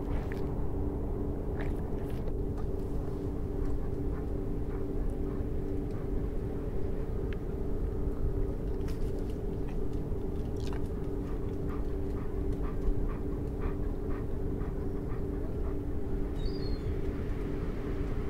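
A steady low drone of the installation's sound design: two held tones over a dense low rumble, with scattered clicks and ticks and a brief high chirp near the end.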